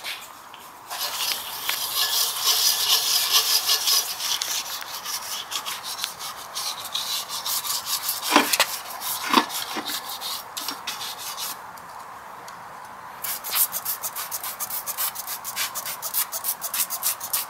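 Scrubbing a used clutch pressure plate by hand: a rapid, rough rubbing for about ten seconds. After a short pause, a trigger spray bottle of degreaser is pumped in quick repeated squirts onto the plate.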